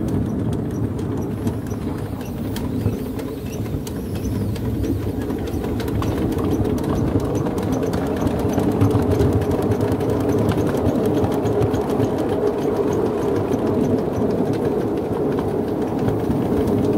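Miniature live-steam locomotive running along its track, its exhaust chuffing and wheels clattering in a fast, steady rhythm.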